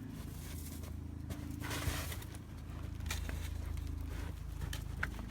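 Footsteps and scuffling in deep powdery snow, a few short crunches and one longer shuffle about two seconds in, over a low steady rumble.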